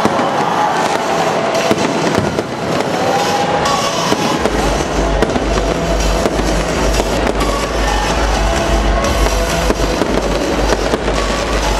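Fireworks display: a dense run of crackles and small bangs with no break, from spark fountains and low aerial bursts.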